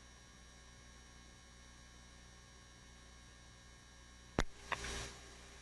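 Steady low electrical hum with faint steady tones on the helicopter's radio audio feed. About four seconds in, a sharp click and a brief burst of hiss, as the radio keys up.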